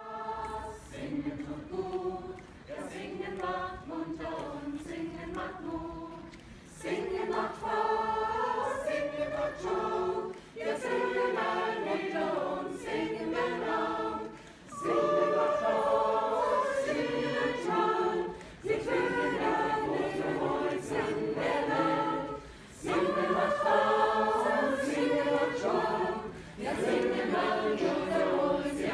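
A mixed group of amateur singers, men and women, singing together as a choir in phrases with short breaks between them. The singing is softer for the first several seconds, then fuller and louder from about seven seconds in.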